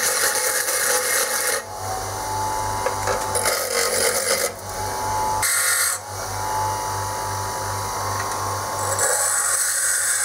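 Ozito bench grinder running with a steady motor hum while a lathe tool bit is pressed against the spinning wheel in about four passes, each a harsh grinding hiss, the last starting near the end.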